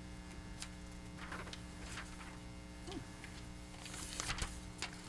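Steady low electrical mains hum from the meeting room's sound system, with faint rustles and a few light clicks, and a brief burst of rustling about four seconds in.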